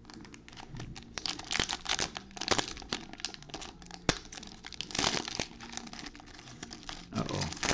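Foil wrapper of a Panini Mosaic trading-card pack being torn open and crumpled by gloved hands: a run of crinkling and crackling with sharp snaps of the foil.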